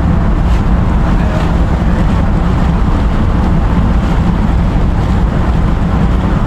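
Steady rumble and rush of a roll-on/roll-off ferry underway at sea: the ship's drone, water rushing along the hull and wind buffeting the microphone.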